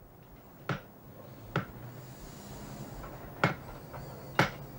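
Butcher's cleaver chopping down through a side of pork on the bench: four sharp chops at uneven intervals, over a low steady hum.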